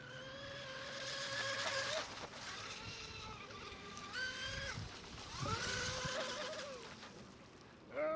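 The Tenshock EVO 1535 3350kv brushless motor of an RC mono racing boat whining out on the water. The whine comes in three stretches and swings up and down in pitch with the throttle.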